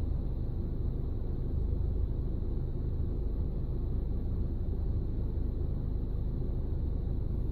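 Steady low rumble inside a parked car's cabin, with no distinct events.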